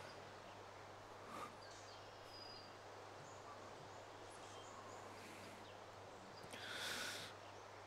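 Quiet ambience with faint high bird-like chirps. A short soft rustle comes about a second and a half in, and a longer, slightly louder one near the end.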